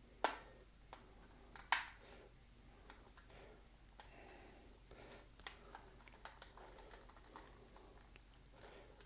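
Small clicks and scrapes of a screwdriver working at a stuck screw in a plastic toy case, with two sharper clicks in the first two seconds. The screw head is stripped and the screw does not turn.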